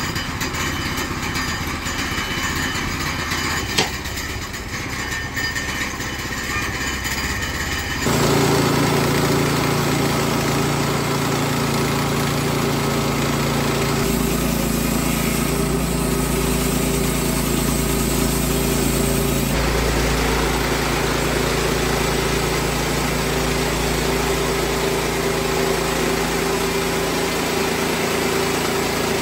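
Woodland Mills HM122 portable bandsaw mill running, its gas engine driving the band blade through a log. The sound is quieter at first and then steps up suddenly about eight seconds in to a louder, steady engine note under cutting load. The tone shifts abruptly twice more later on.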